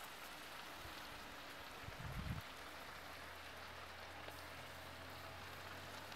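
Oil sizzling faintly around split eggplants frying on a hot stone slab over embers: a steady fine crackle, with a brief low bump about two seconds in.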